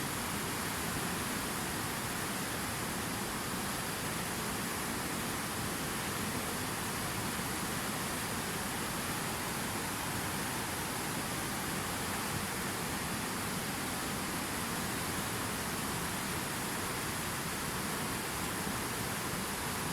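Flowing water rushing steadily, an even hiss with no breaks or changes.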